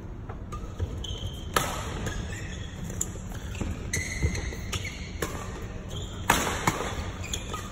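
Badminton rally: rackets striking the shuttlecock in a quick exchange, a sharp crack about once a second, with the loudest hits about a second and a half in and near the end. Short high squeaks of shoes on the court come between the hits, over a steady low hum.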